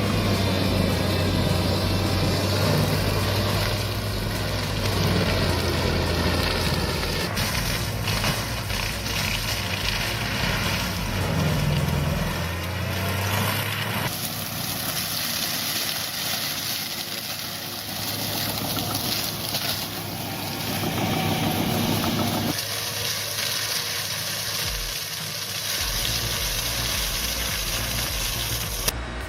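Engine of a Barco 930 bush-clearing machine running steadily while it works, across several clips joined with abrupt cuts.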